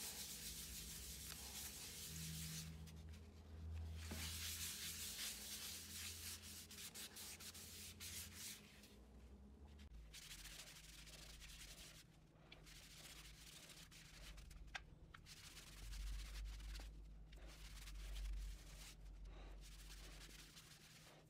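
A hand-held pad rubbing liquid finish onto a turned cherry and epoxy resin bowl, a soft scrubbing hiss that swells and fades with the wiping strokes. A low steady hum runs underneath and changes pitch about ten seconds in.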